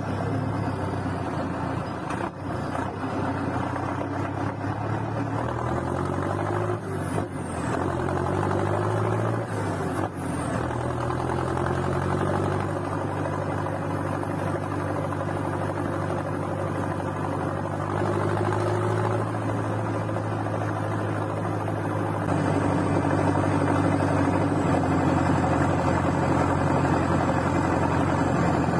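Valtra BM125i tractor's diesel engine running through a straight-through exhaust, revving up and down a few times, then holding a steady speed. It gets louder about three quarters of the way through.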